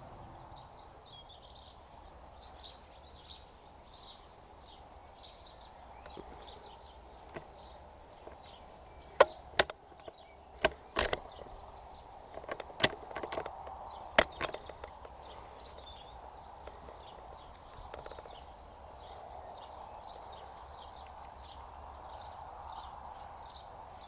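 Sharp metallic clicks of a CZ452 bolt-action .22 rifle, a cluster over about five seconds midway, as the unloaded rifle's bolt is worked to chamber a round. Under them, faint outdoor background with birds chirping throughout.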